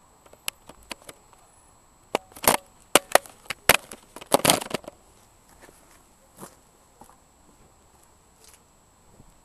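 Irregular sharp clicks and knocks, a dense cluster of them in the middle, with no engine or starter motor running.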